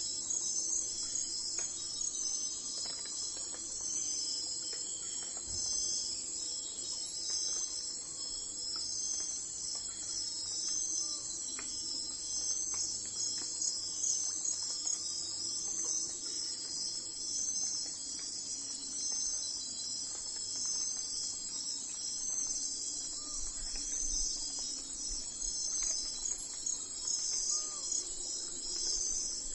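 Steady chorus of crickets, a dense high trilling that pulses evenly without letup. A few faint short chirps sound now and then lower down.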